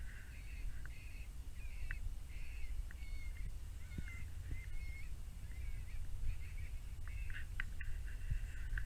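Electronic predator caller playing a string of short, wavering animal cries, repeated about once or twice a second over a low rumble.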